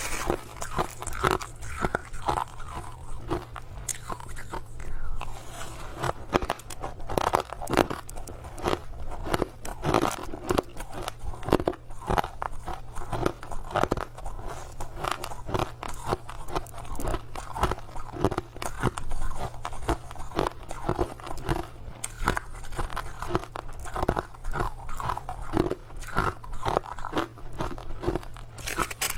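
Crushed ice being bitten and chewed close to the microphone: a steady run of sharp, irregular crunches, several a second.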